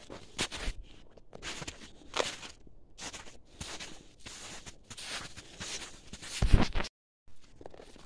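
Footsteps crunching in snow at a walking pace, about two steps a second. Near the end there is a louder low thump, then the sound cuts out for a moment.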